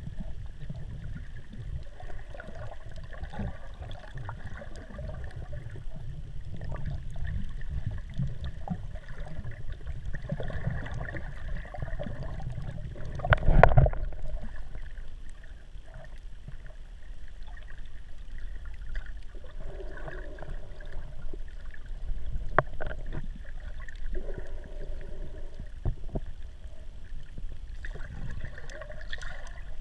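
Muffled water sloshing and gurgling heard by a camera held underwater while snorkeling, a steady low rumble with a few soft knocks. A louder rushing burst comes a little before halfway through.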